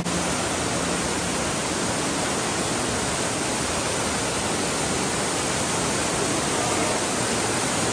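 Ruby Falls, a tall waterfall inside a limestone cave, pouring steadily: a loud, even rush of falling water.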